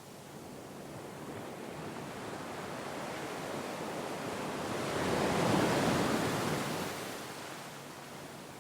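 Sea waves: a wave builds gradually, breaks with a peak of surf about five to six seconds in, then washes back and fades.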